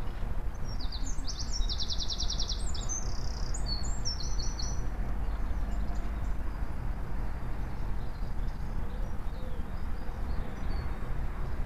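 A songbird sings one high phrase lasting about four seconds, with a fast trill in the middle, followed later by a few faint high calls. A steady low rumble runs underneath.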